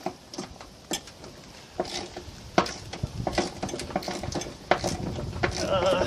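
Metal hand tools clinking and clattering against the steel parts of a mower deck's pulleys as they are worked loose, with a few sharper knocks about one, two and a half and four and a half seconds in.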